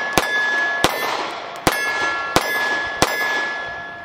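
Bersa TPR9 9mm pistol fired five times at an even pace, under a second apart, each shot followed by steel targets ringing with clear, lasting tones that fade away after the last shot.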